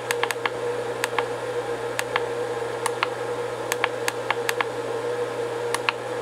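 Push buttons on a Huanyang VFD's front keypad clicking under a fingertip, a quick irregular run of presses, many heard as close double clicks, while the parameter number is stepped down. A steady hum runs underneath.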